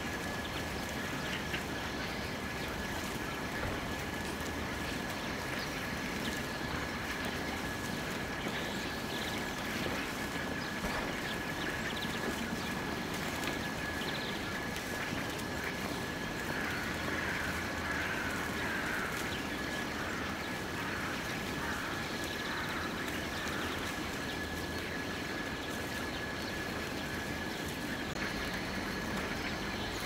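Fieldfares calling: a run of short calls lasting several seconds around the middle, over a steady background hum and a faint steady high tone.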